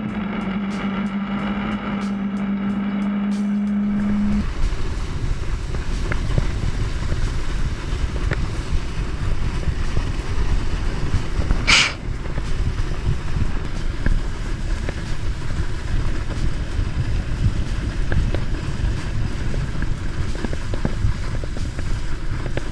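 Water and wind rushing past a camera towed behind a ski boat, a dense low rumble. A steady low hum stops about four seconds in. A single brief sharp crack comes near the middle. No boat engine is heard over the rush.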